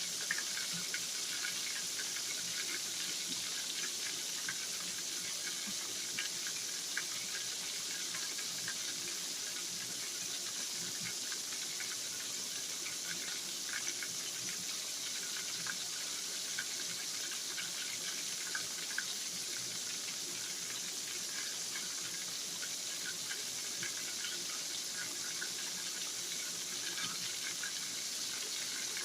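Floured liver frying in hot oil in a pan: a steady sizzle with many small pops and crackles scattered through it.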